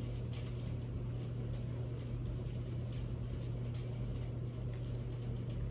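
Quiet chewing of a taco, a few faint clicks of mouth sounds over a steady low hum.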